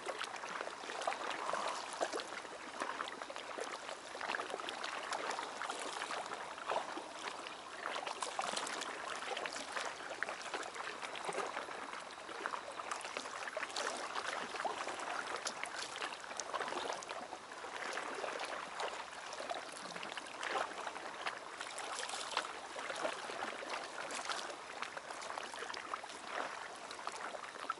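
Small waves lapping and splashing against a concrete harbour wall and the blocks at its foot: a steady, irregular water sound made of many small splashes.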